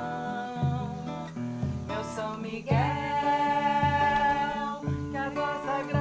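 Acoustic guitar strummed steadily, its chords changing about once a second, under women's voices singing long held notes of a devotional song to Saint Michael.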